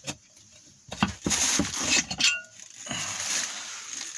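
Gearbox cover on a ZAZ Tavria-type manual transmission being tapped loose and worked off its case. There are a few sharp metal knocks and clinks with scraping between.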